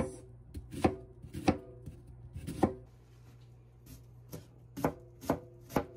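Chef's knife cutting through a white onion onto a cutting board: separate knocks of the blade on the board about half a second apart, with a pause of about a second in the middle.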